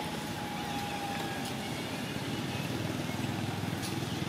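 A motor vehicle's engine running steadily: an even, low, pulsing rumble.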